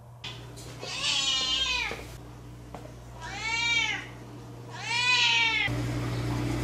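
A house cat meowing three times, drawn-out calls of about a second each that rise and fall in pitch. Near the end comes a second of steady hiss.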